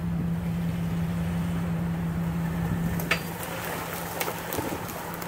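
Jeep Wrangler TJ's engine running at low crawling speed, a steady drone. From about three seconds in, sharp cracks and snaps as the Jeep pushes through fallen branches and brush.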